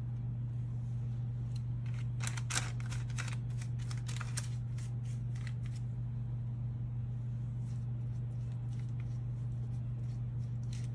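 Silicone pastry brush dabbing and stroking egg wash onto raw pastry and against the bowl, a run of light scratchy ticks clustered in the first half and again near the end, over a steady low hum.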